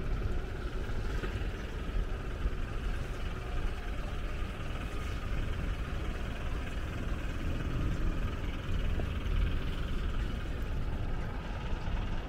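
Steady hum of city road traffic, a continuous low rumble and hiss with no single event standing out.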